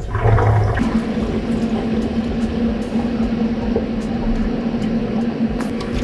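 Water rushing and splashing as hot water is poured back into a LightObject CO2-laser water chiller and pumped out of its outlet hose into a plastic jug. A steady hum comes in about a second in.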